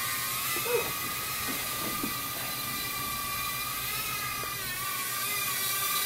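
Cheerwing CW10 mini quadcopter's four small propeller motors whining steadily in flight, the high pitch wavering slightly as the drone moves. A brief short sound stands out just under a second in.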